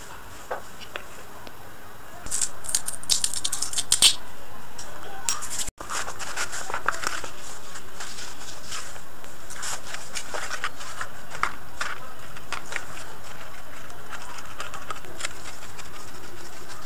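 Hand-handling noises from craft materials: a run of quick clicks and scratches a few seconds in, then scratchy rustling of cotton wadding being pressed onto a cardboard tube and scissors cutting through the wadding. The sound cuts out briefly just before six seconds.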